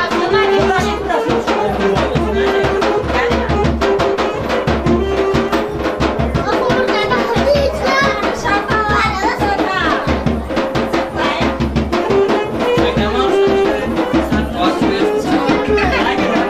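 Loud folk dance music with a steady drum beat under a held melody.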